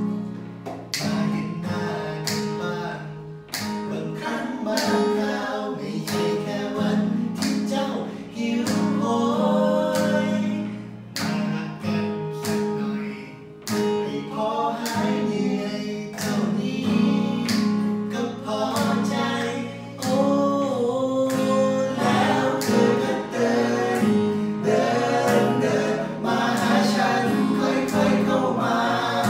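Acoustic guitar strummed through Bbm7 and Abmaj7 chords, accompanying men singing a Thai song, with several voices singing together.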